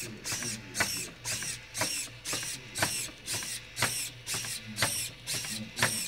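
Small servo motors of a robot built from Artec blocks whirring in short strokes about twice a second as its arms and body move.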